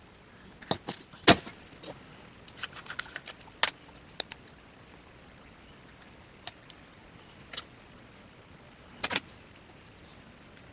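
Scattered clicks and knocks of small craft items being handled and set down on a tabletop: a cluster of sharp knocks about a second in, lighter clicks through the middle, and a double knock near the end.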